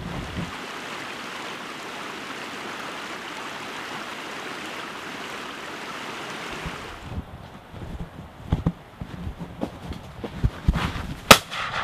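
A steady rushing noise for about seven seconds, then footsteps on a dirt path with irregular low knocks and one sharp click near the end.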